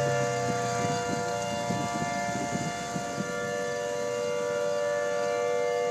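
Outdoor tornado warning sirens sounding together: a steady, unbroken tone made of several held pitches.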